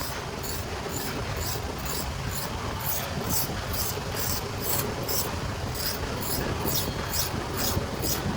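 Steady back-and-forth rasping strokes, about three a second, of steel being filed or abraded by hand.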